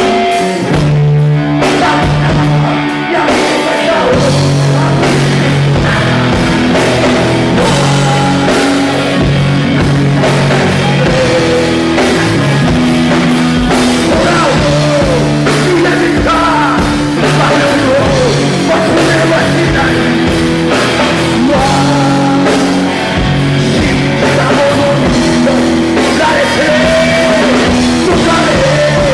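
Loud live rock band playing: distorted electric guitar, bass and drum kit, with singing.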